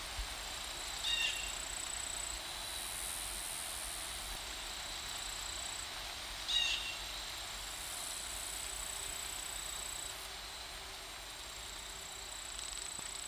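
Outdoor woodland ambience: a steady hiss with a thin, high buzz that comes and goes, and two short bird chirps, about a second in and again about six and a half seconds in.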